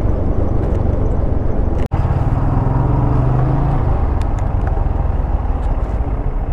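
Motorcycle engine idling with a low, steady rumble under a wash of outdoor noise. The sound drops out for an instant about two seconds in.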